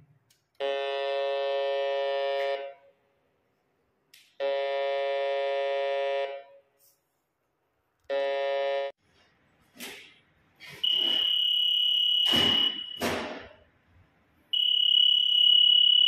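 Baldwin Boxall emergency voice communication call point sounding its call tone after the CALL button is pressed: a buzzing tone three times, the first two about two seconds long and the third shorter. Past the middle come a few knocks, then a higher steady electronic beep twice, about two seconds and then a second and a half long, as the call comes through to the system.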